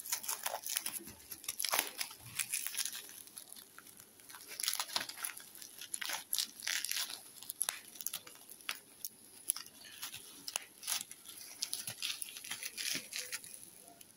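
Clear plastic wrapping crinkling and tearing as hands pull it off a toy train engine, in irregular crackles and rustles.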